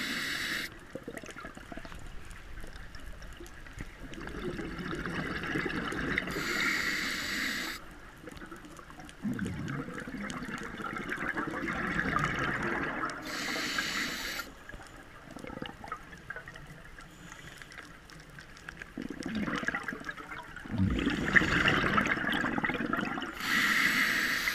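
Scuba diver breathing through an open-circuit regulator underwater: a hiss on each inhale, then a rush of exhaust bubbles on each exhale, in slow breaths several seconds apart.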